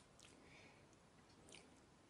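Near silence, with a few faint clicks from a 35 mm camera's controls being handled.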